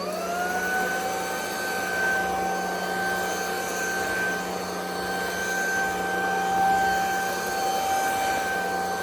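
A 550 W cordless stick vacuum cleaner's motor spins up, its whine rising for the first half second, then runs steadily with a high whine over a rushing noise.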